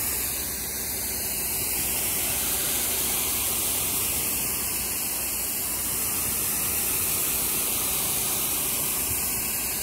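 Spray gun hissing steadily as it jets moss-treatment solution onto terracotta roof tiles.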